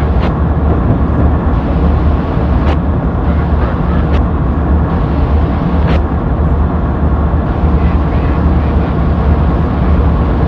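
Diesel locomotive engine sound running steadily, a deep rumble, with a few sharp clicks.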